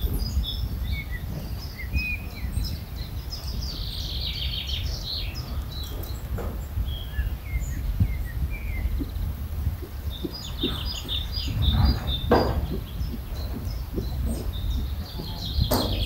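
Small wild birds chirping and twittering on and off over a steady low rumble, with a few dull thumps about twelve seconds in.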